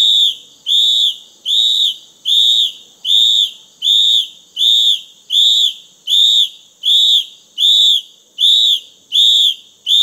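Electronic beeping: a steady run of high-pitched beeps, a little more than one a second, ending in one longer held tone that cuts off.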